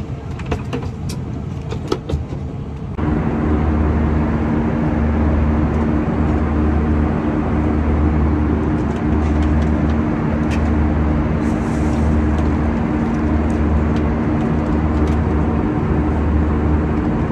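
Loud, steady airliner cabin noise from the jet engines, with two steady hum tones and a low throb that beats about every second and a half. It comes in suddenly a few seconds in, after a quieter stretch with scattered clicks.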